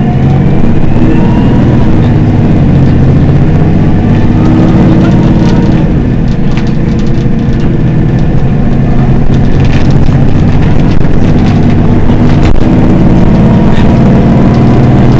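Mercedes-Benz Citaro city bus's rear-mounted engine idling steadily while the bus stands still: a loud, even hum with a few faint clicks.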